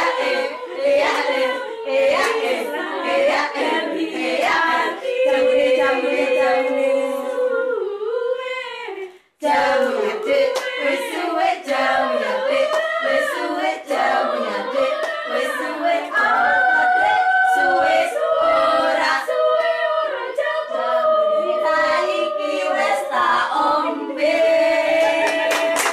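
A small women's choir singing a cappella, with steady hand claps keeping the beat through the first few seconds. The singing breaks off briefly about nine seconds in, then carries on.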